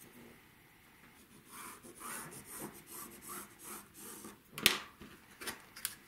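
Pencil scratching on fabric along the edge of an acrylic quilting ruler in a run of short strokes, about two a second. Then a sharp clack and a few lighter clicks as the ruler is lifted off the cutting mat.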